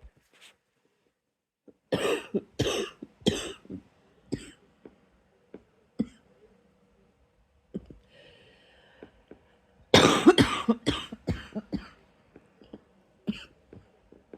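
A person coughing, quietly and persistently, to bring up something stuck in the throat: three hard coughs about two seconds in, then after a breath a longer run of coughs around ten seconds in that trails off into smaller ones.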